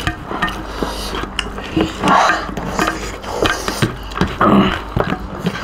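Close-up eating sounds: wet chewing and lip smacks, with fingers mixing rice and curry on steel plates, clicking and scraping now and then.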